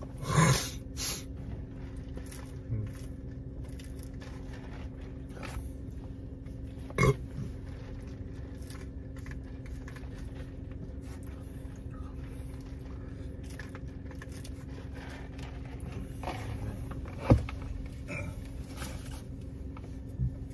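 Steady hum inside a car cabin, broken by a few short loud mouth and throat sounds from the person sitting in it. One comes about half a second in, another around seven seconds, and a sharp one near seventeen seconds.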